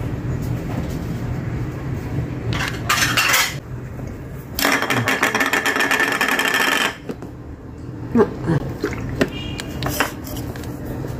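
Dishes and utensils clinking and tapping on glass bowls at a dining table, over a steady low hum. Two bursts of hissing noise stand out, a short one about three seconds in and a louder one lasting about two seconds, followed by several sharp clicks near the end.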